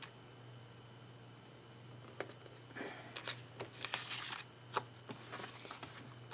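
Sticker sheets and paper being handled: soft rustles and light clicks, starting about two seconds in, over a low steady hum.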